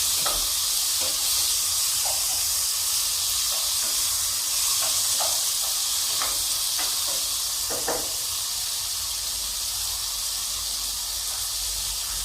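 Chicken frying in hot oil in a pan, a steady sizzle, with a few short scrapes or knocks at irregular moments as the pan's contents are handled.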